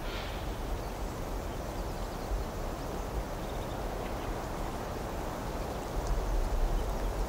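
Wind rushing over the microphone of a GoPro on a fast-flying FPV drone: a steady noisy rush with low buffeting that grows stronger about six seconds in.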